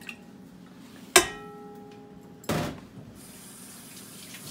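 A stainless steel stand-mixer bowl is struck once about a second in and rings clearly for over a second. A short scraping rub follows, over a low steady hum.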